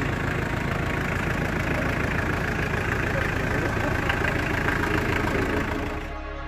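A vehicle's engine idling steadily. It cuts off near the end.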